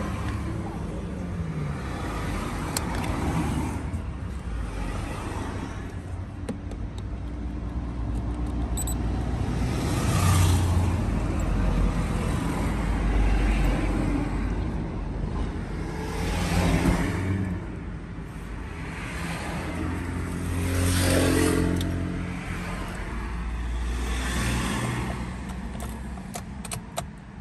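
Vehicle engine running, swelling louder and fading back several times over a steady low hum, with a few sharp clicks near the end.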